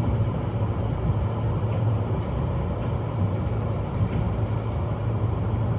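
Steady low hum and running noise inside the front car of a Sotetsu 12000 series electric train, with a few faint light ticks in the middle.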